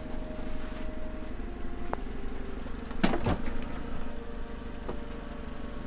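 A car engine idling steadily, with a click and then a louder knock about three seconds in as the hatchback's boot is handled.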